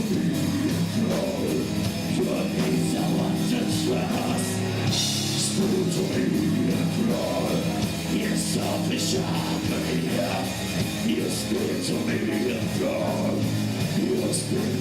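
Rock music in a heavy style, playing continuously.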